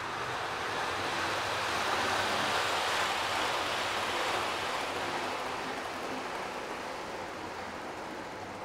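Model railway train of ten coaches running at full speed: a steady rolling rush of wheels on rail and the locomotive's motor, swelling over the first few seconds and then slowly fading.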